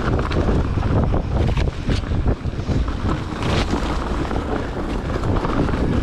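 Wind buffeting the microphone of a mountain bike ridden fast down a gravel forest trail, over the rumble of the tyres, with scattered sharp clicks and rattles from the bike and stones.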